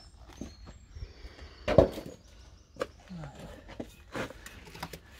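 Clunks and knocks of a steel hand scraper and lid against a galvanised metal dustbin, the loudest about two seconds in, then the scraper scraping into the dry, crusted hot-mixed lime mortar in the bin.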